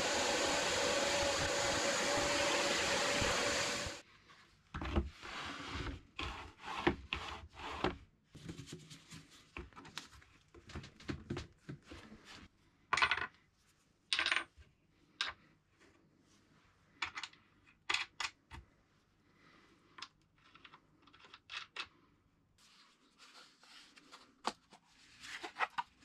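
A power tool runs steadily and cuts off suddenly about four seconds in. Irregular clicks, knocks and scrapes of wooden pieces and small parts being handled and set down follow.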